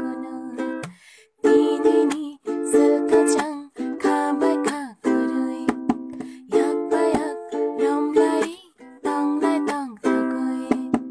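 Ukulele strumming chords in an instrumental passage. The chords come in runs of about a second each, separated by brief breaks.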